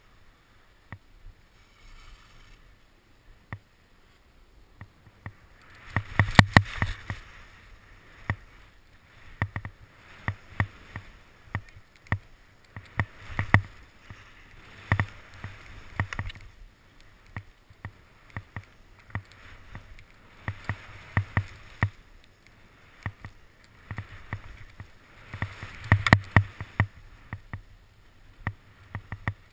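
Skis turning down a steep, tracked-out snow couloir: repeated swishes and scrapes of ski edges on snow, one every second or two, with sharp clicks and knocks mixed in, heard close-up from a camera worn by the skier. The scraping comes in louder spells about six seconds in, around the middle, and near the end.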